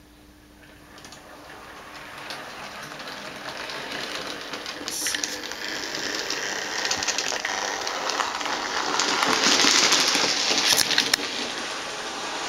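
Model railway train running on the track, a rattling clatter with many fine ticks that grows steadily louder to a peak about ten seconds in, then eases off.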